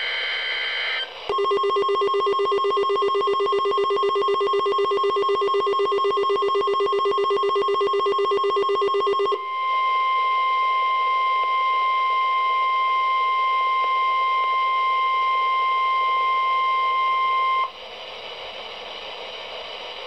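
AlertWorks EAR-10 NOAA weather radio receiver going off for the Required Weekly Test. A brief screech of data header opens it, then a fast-pulsing alert beep sounds for about eight seconds. A steady single alarm tone follows for about eight more seconds, then cuts off suddenly into a faint hiss of dead air as the test fails and the station drops off the air.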